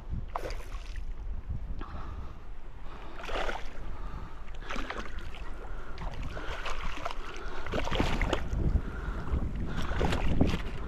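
Wind rumbling on the microphone over sloshing, splashing water, with short irregular splashy bursts throughout.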